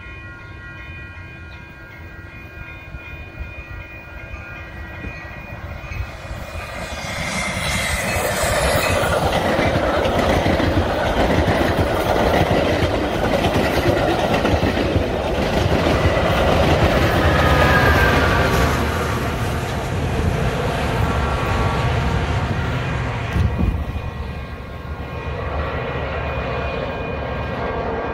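Metra commuter train of bi-level gallery cars approaching and passing close by. The rumble and rattle of the cars builds from about six seconds in, stays loud while the cars go by, then eases off near the end.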